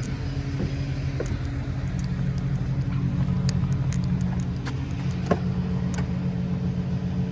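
Tow truck engine running steadily, with scattered light clicks and one sharper knock about five seconds in.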